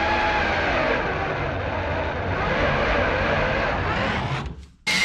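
Handheld power drill boring through the metal floor of a pickup bed, enlarging a pilot hole to 11/16 inch. Its motor whine holds steady but sags and wavers in pitch as the bit bites, then stops a little after four seconds in.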